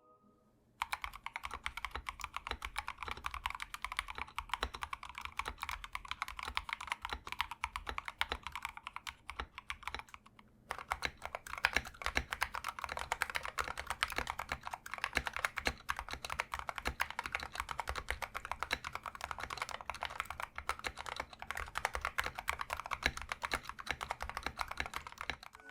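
Continuous typing on a tray-mounted wooden 65% mechanical keyboard with C3Equalz Tangerine linear switches and MT3-profile keycaps: a dense, irregular run of keystroke clacks. About ten seconds in there is a short break, and then a second run of typing follows. The two runs are the board before and after a tape mod.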